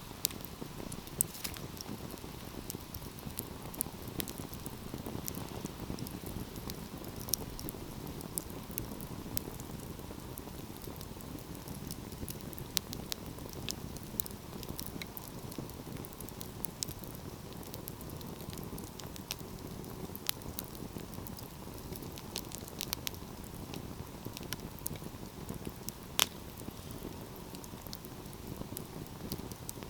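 Fireplace fire crackling, with irregular sharp pops over a steady low rush of flames. One louder pop comes near the end.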